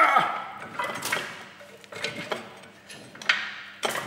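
Scattered metal clinks and knocks from a diesel cylinder head, turbo attached, being lifted free of its engine block and handled, with a louder clunk and brief ringing right at the start.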